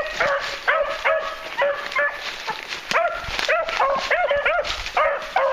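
Beagles giving tongue as they run a scent trail: a quick, unbroken run of short, high, yelping barks, several a second, the two hounds' voices overlapping.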